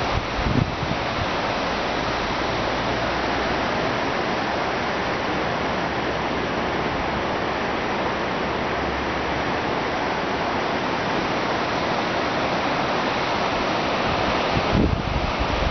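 Steady rushing of the rocky mountain river in the gorge below. Wind buffets the microphone briefly just after the start and again near the end.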